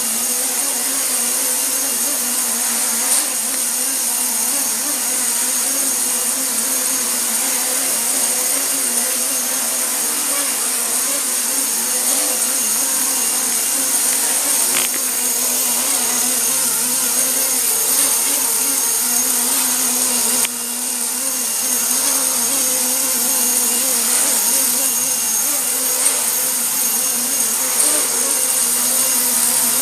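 Remote-control helicopter in flight: the steady whirring whine of its motor and rotor blades, with a short drop in level about two-thirds of the way through.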